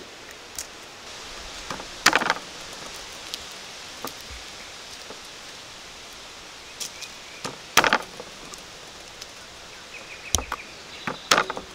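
A broad cleaver-style knife knocking on a cutting board, a few separate sharp knocks as garlic cloves are split off and worked on the board, the loudest about two seconds in, again past the middle, and near the end. A steady outdoor hiss runs underneath.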